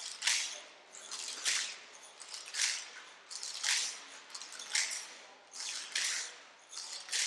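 A hand rattle shaken in a slow, steady beat, about one shake a second, with softer shakes between.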